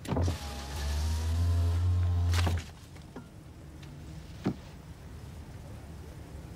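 A car's electric window motor runs for about two seconds with a steady hum and ends in a knock as the glass reaches its stop. Two small clicks follow.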